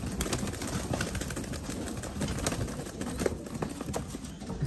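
A cage full of fancy pigeons cooing and shuffling, with wing flaps and many short scattered clicks.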